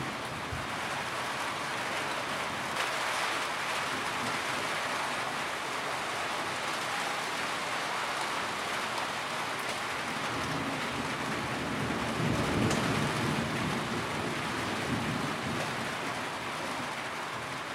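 Steady rain pattering on a tin roof. A low rumble of thunder swells and fades about two-thirds of the way through.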